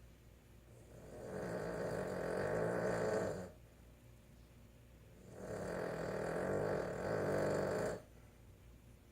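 Boston Terrier snoring while asleep: two long, loud snores, each about two and a half seconds, with a quiet pause between them.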